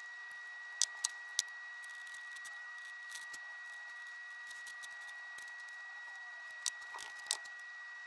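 A few sharp clicks and taps from plastic plant pots being picked up and set down on a tabletop: three about a second in and two more near seven seconds. A steady, faint high-pitched whine runs underneath.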